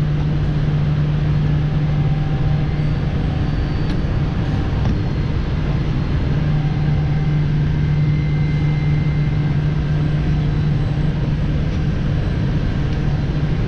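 A steady low mechanical drone: a constant low hum over a rumble, the hum weakening for a few seconds about a third of the way in.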